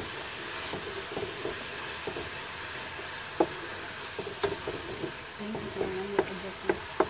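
Sweetened coconut (minatamis na bao) melting with a little water in an aluminium wok, hissing and sizzling steadily as it is stirred, with occasional sharp clicks of the stirring utensil against the pan.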